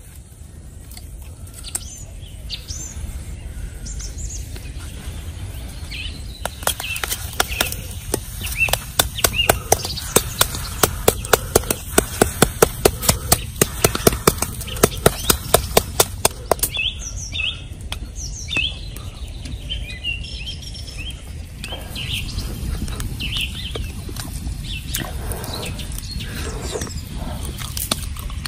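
A wooden stick knocking and scraping the charred skin off a fire-roasted tuber on a flat stone, a fast run of sharp taps, about four a second, through the middle. Small birds chirp before and after the taps.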